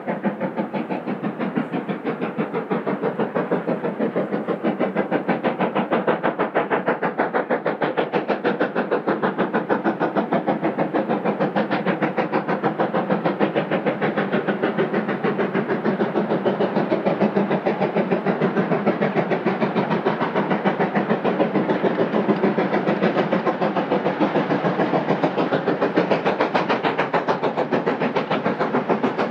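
LNER Class B1 4-6-0 two-cylinder steam locomotive working a train, its exhaust beating in a rapid, even rhythm. It grows louder over the first few seconds as it comes nearer.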